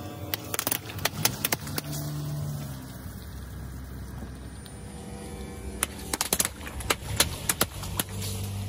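A car tyre rolling over long water-filled balloons, bursting them in rapid runs of sharp pops, over the steady low hum of the car's engine. One run of pops comes in the first second and a half, another from about six to eight seconds in.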